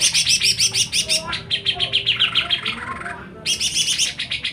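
Songbird in full song: fast runs of sharp, high chirping notes, about ten a second, broken by a short pause about three seconds in before another rapid burst.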